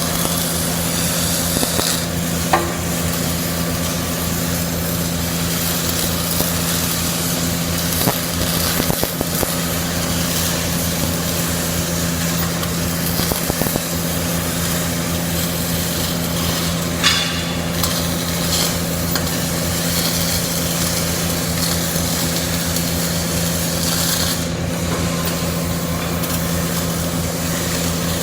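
CO2 gas-shielded (MAG) welding arc, sizzling and crackling steadily over a steady electrical hum, with a few sharper ticks.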